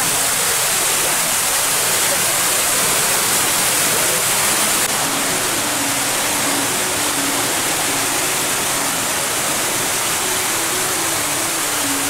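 Waterfall rushing: a loud, steady roar of white water cascading down a rock face, with a faint music melody behind it.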